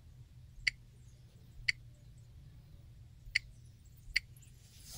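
Four sharp taps of a fingertip on a rugged tablet's touchscreen, irregularly spaced, over a low steady hum.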